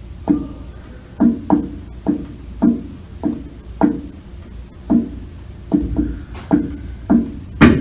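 Hands drumming on a wooden lectern top: about a dozen uneven knocks, roughly one every half second, with the last one, near the end, the loudest. The knocks are picked up by a microphone lying on the lectern.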